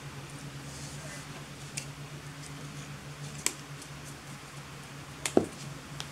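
Scissors snipping monofilament fishing line: a few short, sharp clicks over a steady low hum.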